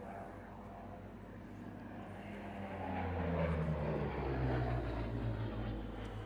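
Supermarine Spitfire's Rolls-Royce Merlin V12 engine during a flypast. The engine note grows louder, is loudest around the middle, and drops in pitch as the aircraft goes by.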